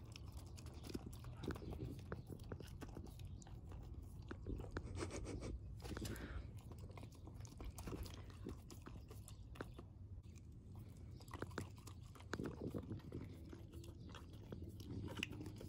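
Golden retriever puppy licking and chewing a lemon wedge: a steady run of irregular licking smacks and chewing clicks.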